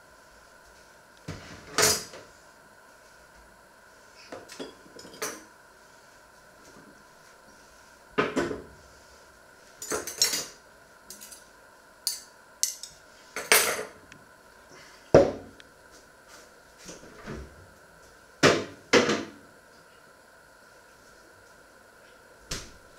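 Metal cutlery and kitchen utensils handled and set down on a wooden worktop: a dozen or so separate clinks and knocks at irregular intervals, over a faint steady hum.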